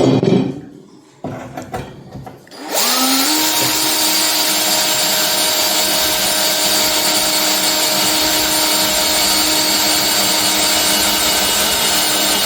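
A few knocks and handling sounds, then about three seconds in an electric drill starts, its whine rising to speed and then running steadily as it bores a pilot hole through a steel plate.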